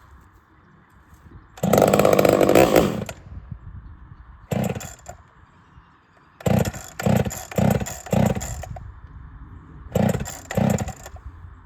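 Ported Homelite VI-130 two-stroke chainsaw being pull-started: it fires for about a second and a half and dies, then catches only in short bursts on several more pulls without staying running.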